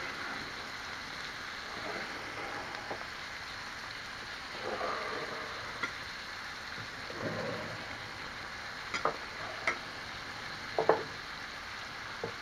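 Marinated chicken and pork sizzling in hot oil on a bed of diced onion in a frying pan: a steady frying hiss, with several sharp clicks in the last few seconds.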